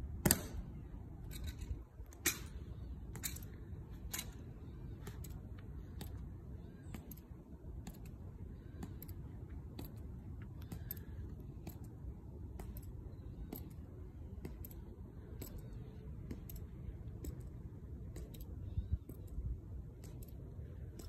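Heels of Tomb guards' hard-soled dress shoes clicking on stone pavement in slow, measured marching steps. A low outdoor rumble runs underneath.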